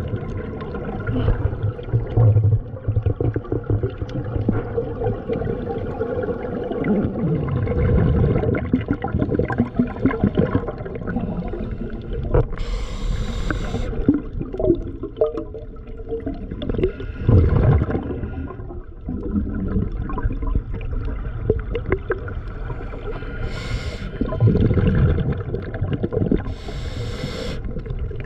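Continuous water gurgling and rumbling, broken by three short hissing bursts, the first and last about a second long.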